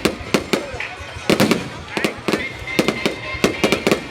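Fireworks display: an irregular run of sharp bangs and crackles, several a second, some cracks louder and closer than others.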